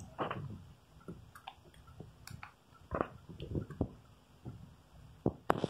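Handling noise of fingers on a mobile phone's plastic casing: irregular soft rubbing and small clicks, with a few sharper clicks near the end.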